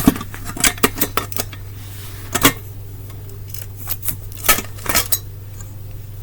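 Metal ceiling fan parts clinking and knocking against each other in irregular clusters as the motor housing is handled and fitted over the fan motor, with a steady low hum underneath.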